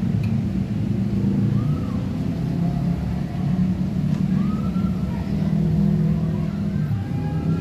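A motor vehicle engine running, a steady low rumble, with a few faint short high glides over it.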